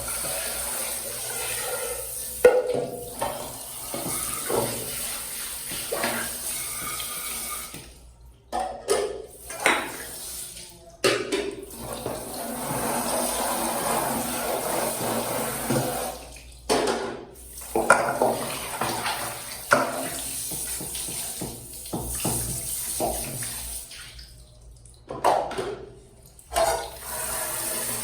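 Water running from a kitchen tap in several stretches with short breaks, as things are rinsed under it, with a few sharp knocks of items handled in the sink.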